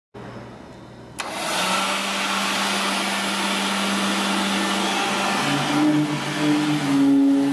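Leaf blower switched on about a second in, then running steadily with a strong rush of air and a motor hum as it blows air under the hovercraft's skirt; the hum shifts to a higher pitch about two-thirds in.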